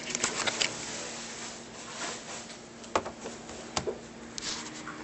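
Handling noise: a few light taps and clicks, a cluster at the start and single ones about three and four seconds in, over a steady low hum.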